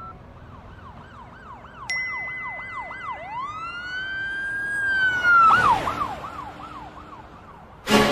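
Police siren alternating between a fast up-and-down yelp and one long slow rise and fall, then back to the yelp, with a second steady high tone sounding for a few seconds in the middle and a rush of noise about five and a half seconds in. Music cuts in just before the end.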